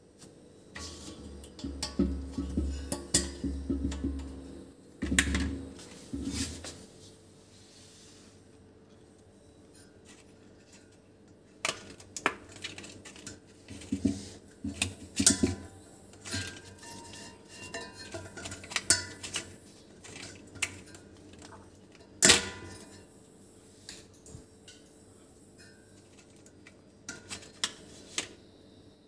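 Handling an LPG cooking gas cylinder and its brass valve: scattered metallic clinks and knocks, with a low scraping rumble in the first six seconds or so.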